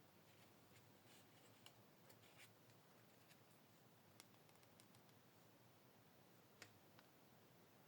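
Near silence with a few faint, scattered clicks and light rustles from small plastic miniatures being handled.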